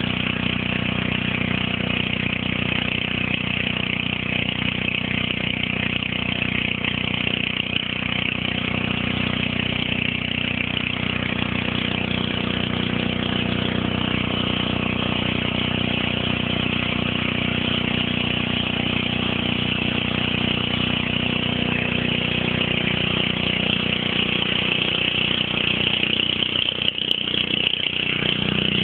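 Small engine running steadily at a constant speed, driving the pump of a water-well boring rig.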